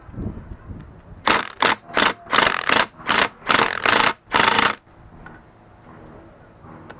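Impact gun fired in about eight short, loud bursts over three and a half seconds, loosening the rear output housing bolts on a transfer case.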